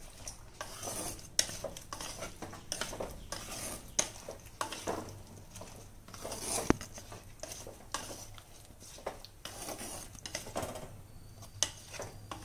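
Wooden slotted spatula stirring and scraping cauliflower masala in a clay pot, with irregular scrapes and knocks against the pot. One sharper knock comes a little past the middle.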